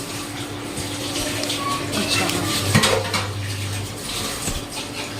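Kitchen clatter: dishes and metal utensils clinking and knocking against each other and the counter, with one sharper knock about halfway through.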